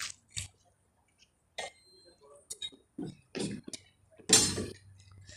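Short, scattered snatches of voices with gaps of quiet, the loudest about four seconds in, and one faint, short high beep about two seconds in.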